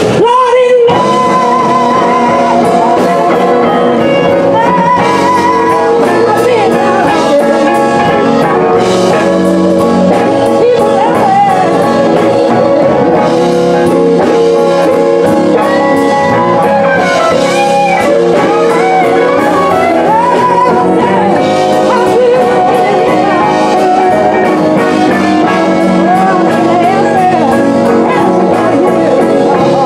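Live blues band playing a slow blues, with electric guitars, bass, drums and horns, and a woman singing over it.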